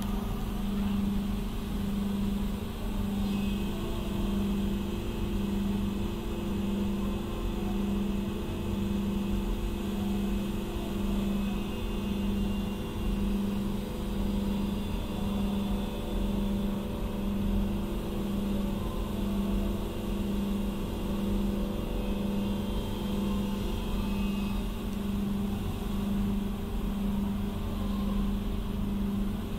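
Aries CNC machine running with a steady hum that pulses evenly a little over once a second. A higher motor whine joins in after a few seconds and drops away several seconds before the end.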